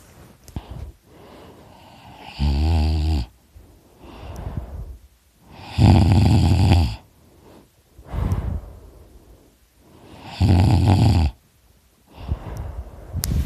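A person snoring loudly: three long snores about four seconds apart, with quieter breaths out between them.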